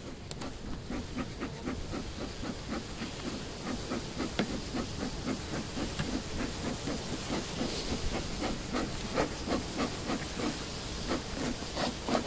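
Bee smoker's bellows pumped in an even, quick rhythm, each squeeze giving a short hiss of smoke, about three puffs a second.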